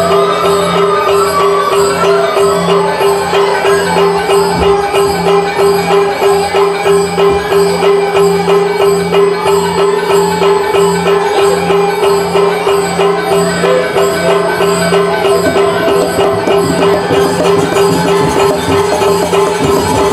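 Balinese gamelan playing accompaniment for the Barong dance. Metal keyed instruments and drums keep a fast, even beat over a steady ringing tone and a low gong-like tone that swells and fades in a regular pulse.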